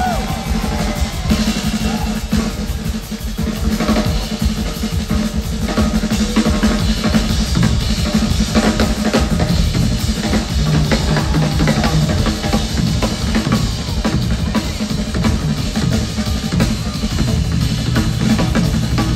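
Two drummers playing a live drum duet on two full kits: rapid, dense hits on the bass drums, snares, toms and cymbals, over a steady low tone.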